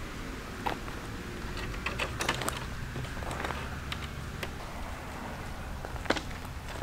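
Scattered light clicks and knocks over a low steady rumble, with a small cluster about two seconds in and the sharpest knock about six seconds in.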